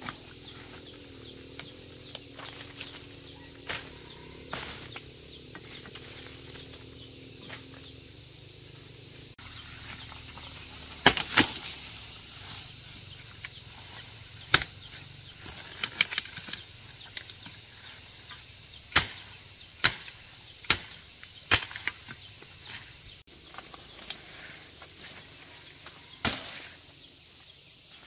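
A long knife chopping sugar cane stalks: about ten sharp, irregularly spaced strikes, beginning about a third of the way in. A steady chorus of insects carries on underneath.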